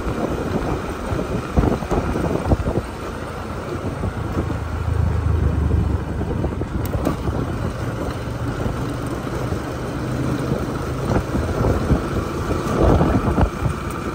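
Motorcycle running along a road, heard from the rider's seat with wind buffeting the microphone; the engine's low hum swells a little around the middle.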